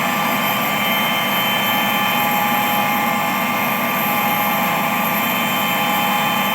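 Steady engine drone with several steady, high whining tones riding over it, unchanging throughout.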